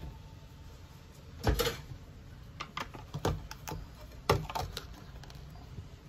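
Sharp knocks and clacks of a plate and kitchen things being handled, as the plate is set over a cup of instant noodles to let them steep. The loudest knocks come about a second and a half in and again just past four seconds.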